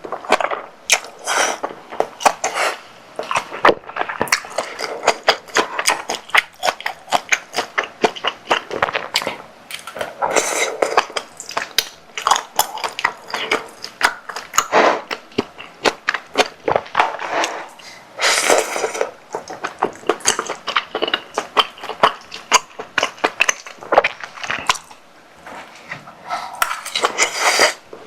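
Close-miked eating of spicy tteokbokki: rapid clicks of utensils against the dish and chewing, with a few longer, noisier bursts of about a second.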